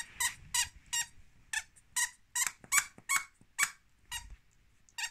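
A squeaker inside a yellow plush duck toy squeaking as a small dog bites and chews it: about a dozen short squeaks at an uneven pace, a few per second.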